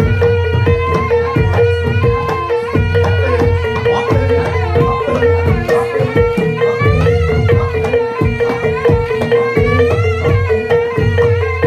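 Traditional Javanese Barongan accompaniment music: fast hand-drum strokes over a steady held tone, with a wavering melody line above.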